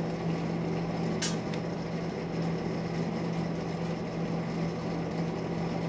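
Steady low electrical hum over a constant hiss of machine noise, with one sharp click about a second in.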